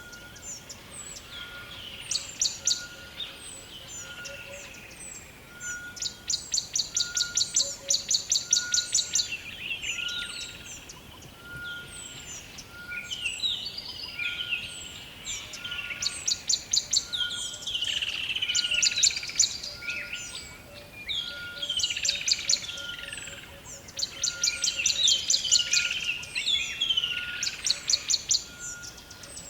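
Rainforest bird chorus: several birds calling at once, with bursts of rapid trilling and falling whistled notes. Under them a short, even note repeats about once a second.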